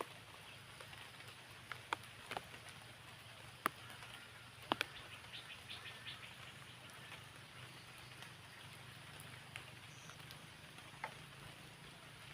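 Light rain falling as a faint steady hiss, with scattered sharp taps and drips, the loudest a little under 4 seconds in and just before 5 seconds, over a low steady hum.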